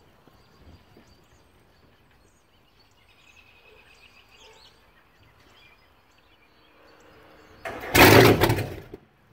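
Faint bird chirps in quiet open air, then, about eight seconds in, a loud blast of just over a second that cuts off abruptly: a brief firing of one of a 1998 Fountain 42 Lightning's high-performance marine engines, run dry on the trailer without cooling water.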